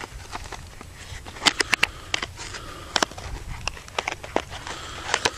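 Irregular sharp clicks and light rattles of handling close to the microphone, a quick cluster about a second and a half in and more scattered through the rest, over a steady low rumble.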